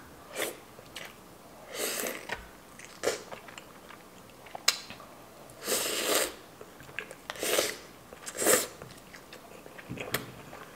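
Close-miked chewing of a spoonful of rice with hamburger steak, egg and gravy: a run of separate mouth smacks, roughly one a second, some louder than others.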